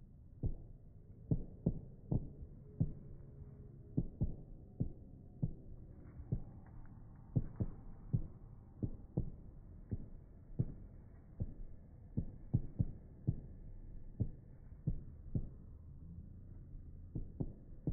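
Fireworks shells bursting, slowed down and pitched down into deep, dull thumps, irregular at about one to two a second over a low rumble.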